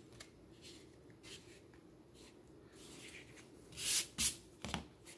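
Laser-cut plywood parts being handled and fitted together by hand, with light rubbing and scraping of wood on wood. Two sharper handling noises come about four seconds in, and a smaller one just after.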